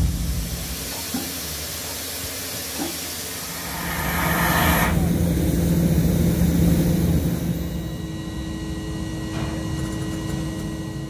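Peppercorn A2 steam locomotive standing in steam, hissing steadily, with a louder rush of steam lasting about a second, roughly four seconds in.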